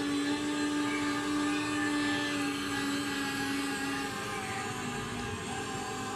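Electric motors of an RC excavator whirring as it slews round in a circle: a steady whine with one strong hum that drops out about four seconds in, while a lighter whir carries on.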